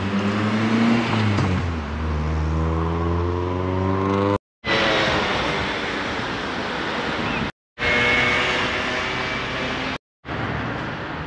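Road traffic: a motor vehicle's engine running, dipping and then rising steadily in pitch as it accelerates, followed by the rush of passing traffic. The sound cuts out to silence three times, briefly each time.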